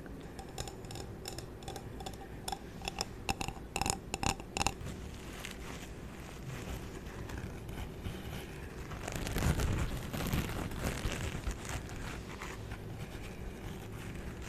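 A run of light taps on a hard object that rings briefly at the same few pitches with each tap, coming faster before stopping about five seconds in. Later a longer, louder scraping or rubbing sound swells up and fades.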